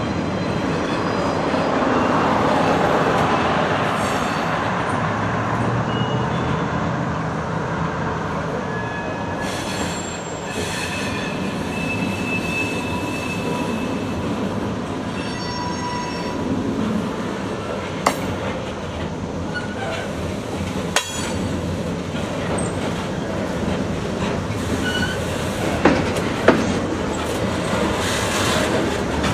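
Freight train of covered hoppers and boxcars rolling past, its steel wheels squealing on the rails in thin high whines that come and go over a steady rumble. A few sharp clanks are heard in the second half.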